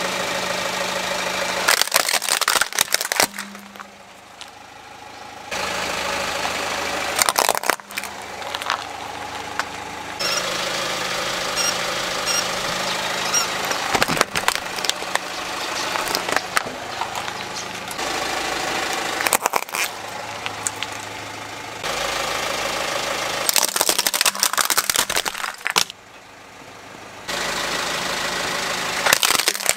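A car's engine running while its tyre rolls over toy cars and other objects, crushing them in repeated bursts of cracking and crunching plastic, about six times across several takes.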